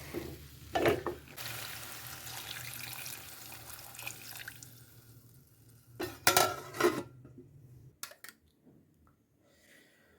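Water poured into a pot of frying tomatoes, potatoes and bananas, hissing and fading away over a few seconds. About six seconds in, a short clatter of metal pot and utensil knocks, then a couple of clicks.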